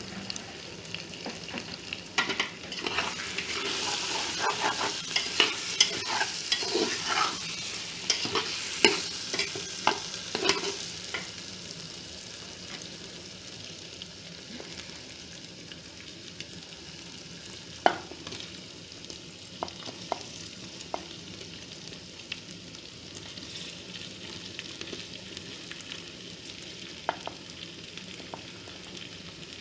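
Potato and onion masala sizzling in a metal pot while a steel slotted spatula stirs it, scraping and clacking against the pot for the first ten seconds or so. After that a quieter, steady sizzle with a few single sharp clinks of metal on metal.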